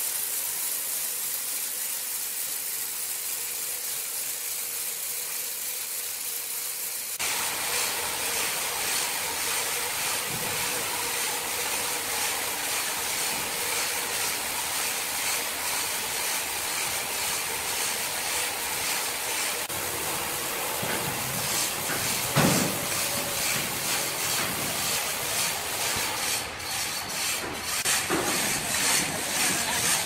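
Horizontal band sawmill blade cutting lengthwise through a large ironwood log: a steady hissing cutting noise over the running machine. It grows louder and brighter about seven seconds in, and a single knock stands out about three-quarters of the way through.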